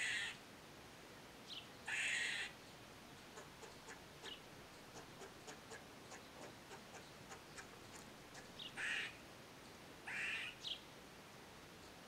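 Eastern gray squirrel giving harsh, nasal, duck-like calls, four of them about half a second each, a couple led by a short sharp chirp. Faint quick clicks come between the calls in the middle.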